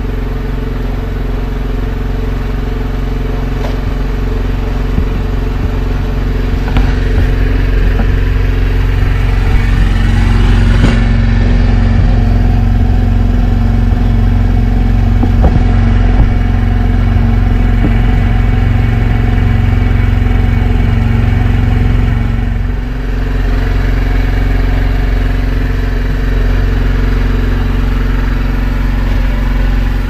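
Engine aboard an outrigger fishing boat running steadily. It grows louder over the first several seconds, with a few sharp knocks and clatters on deck.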